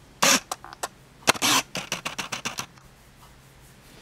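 Handling noise right at the recording device: a quick run of loud scratchy rustles and sharp clicks, starting a moment in and stopping a little past halfway, with quiet room tone around it.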